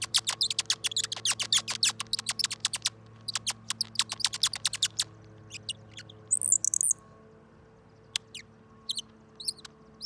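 Twist-type bird caller squeaking in quick bird-like chirps as it is twisted, a rapid run for about five seconds, then a short higher chirp and a few scattered ones near the end.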